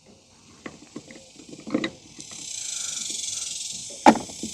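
Tools being handled: a few light clicks and knocks, then a steady, finely rippled high rasp from about two seconds in, broken by a sharp click near the end.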